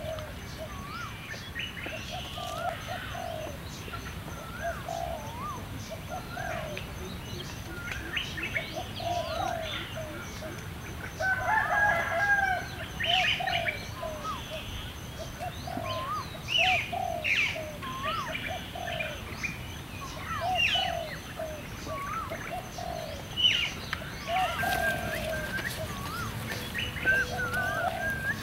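Several birds calling and chirping together. A short lower call repeats roughly once a second, with higher chirps and whistles over it.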